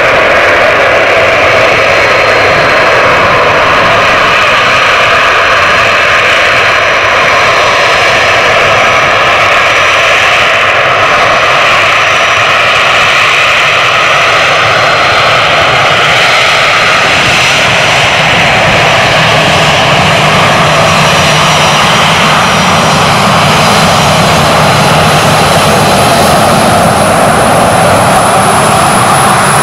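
Boeing 737-500's CFM56-3 turbofan engines running at taxi power as the airliner taxis up and rolls past close by: a loud, steady jet whine. A high whistle comes in about two-thirds of the way through and grows stronger as the engines draw level.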